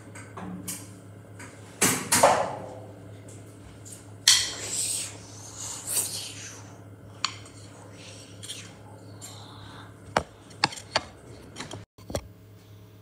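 Drum-kit hits: two strong ringing strikes about two seconds in, then scattered clinks and knocks. Near the end, a quick run of sharp taps as the tablet recording the kit is handled.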